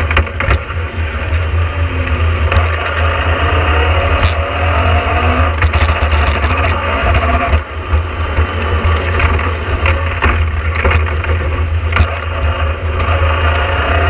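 Talbot Sunbeam rally car heard from inside the cabin at speed, its Vauxhall 2.0-litre engine revving up and down under hard driving through a Tractive sequential gearbox, over a heavy low drone. Frequent knocks and rattles run through it, and the sound dips briefly a little past halfway.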